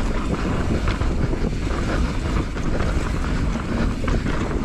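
Wind buffeting an action camera's microphone as a mountain bike rolls fast down a dirt singletrack, with a steady rumble of tyres on dirt and small knocks and rattles from the bike over the rough ground.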